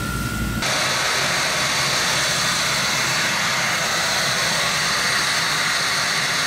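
High-pressure steam hissing steadily from a multiport pressure relief valve lifted on a steam test stand. The loud, even hiss starts suddenly about half a second in and holds level, after a brief low shop hum.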